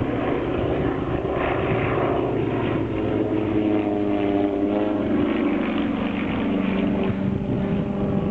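Piston engines of two single-engine propeller aerobatic planes flying in formation, a steady drone whose pitch shifts about halfway through as the planes climb and turn.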